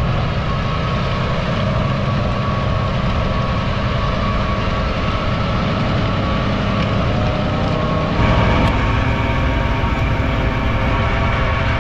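Fendt 1050 tractor's six-cylinder diesel running steadily under load, driving a Kuhn rotary tiller through a green-rye field. About eight seconds in the sound shifts to a closer mix, with a steady higher whine over the engine.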